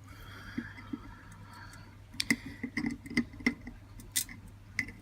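A handful of small, sharp clicks and taps, clustered in the second half, from handling the small copper parts and soldering tools, over a faint steady low hum.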